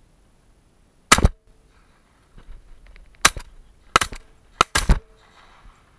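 Shotgun fire at a flushed pheasant: five sharp reports over about four seconds, the first alone and the last four close together.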